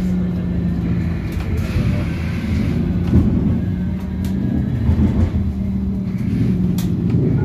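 Cabin noise aboard a Škoda 25Tr Citelis electric trolleybus under way: a steady low rumble of the ride with a constant low hum.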